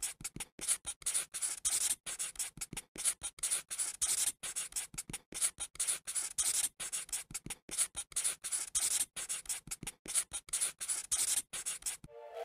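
Felt-tip marker rubbing and scratching across paper in quick, irregular short strokes, several a second.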